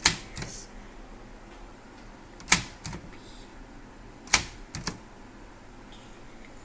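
Brother Deluxe 220 portable manual typewriter being struck: three sharp key strikes about two seconds apart, each followed by a lighter click about half a second later.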